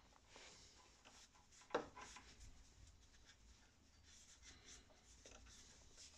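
Faint rubbing of a cloth wiping a motorcycle's front brake caliper, with scattered small ticks and one light click just under two seconds in.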